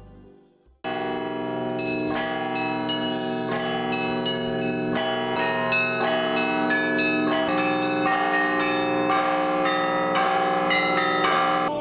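Russian Orthodox church bells rung by a bell-ringer in a belfry: many bells of different sizes struck in a rapid, continuous peal. It starts suddenly about a second in.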